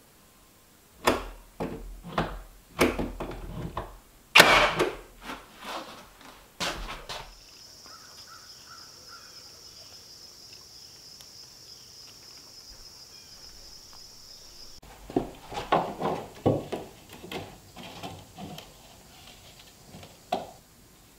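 Cordless nailer firing nails into wooden trim: a quick string of sharp shots, the loudest about four seconds in. Then a steady high insect drone for about seven seconds. After that come scattered wooden knocks and taps as a trim strip is handled and set against the wall.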